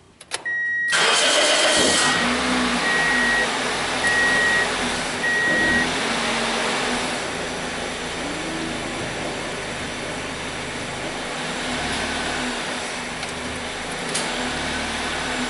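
The 2004 Pontiac Vibe's four-cylinder engine starts about a second in, then runs at idle with the car standing still while the automatic transmission is shifted through the gears, heard from inside the cabin. A dashboard warning chime beeps about five times in the first few seconds.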